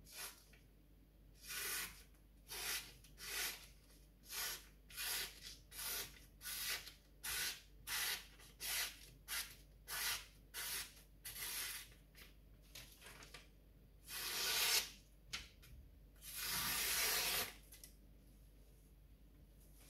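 Freshly sharpened Takamura Chromax knife slicing through a glossy paper flyer, a paper-cutting sharpness test: a quick run of short swishing cuts, about one every three-quarters of a second, then two longer cuts near the end, the second lasting about a second.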